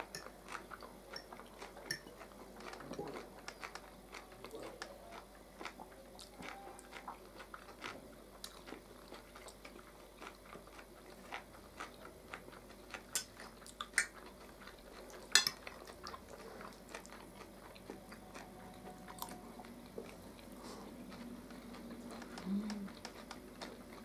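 Quiet eating at a table: metal forks clinking and scraping on plates, with soft chewing. A few sharper clinks stand out around the middle.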